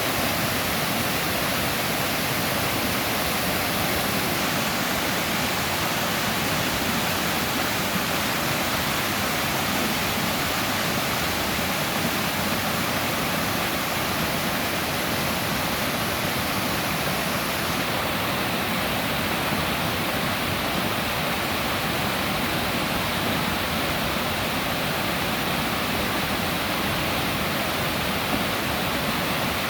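Mountain stream in spate after days of heavy rain, a steady full rush of fast-flowing water.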